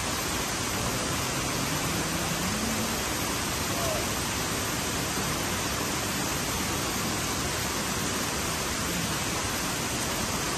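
Steady rush of river rapids: an even, unbroken wash of water noise.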